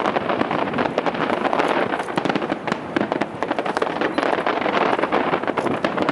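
Aerial fireworks shells bursting in a dense, continuous barrage of overlapping bangs and crackles.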